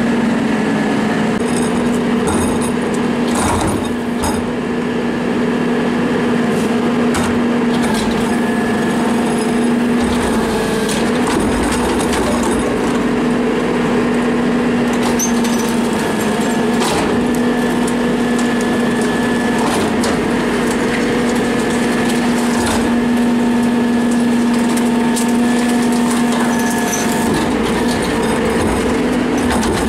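Garbage truck engine on a 2014 Isuzu rear loader running at a raised, steady speed to drive its hydraulics, a steady hum throughout. Over it come scattered knocks and clatter as the rear cart tipper lifts a recycling cart and dumps it into the hopper.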